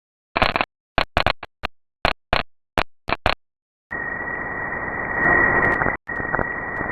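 An audio sample cut into about ten quick, sharply chopped bursts over about three seconds, then a steady hiss with a high, steady tone from about four seconds in, broken off once for an instant near the end.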